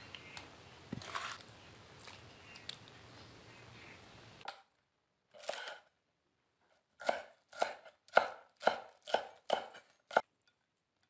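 Cleaver chopping green onion on a wooden cutting board: about eight sharp chops, roughly two a second, starting about halfway through. Before them, only faint clicks and scrapes over a low steady hiss.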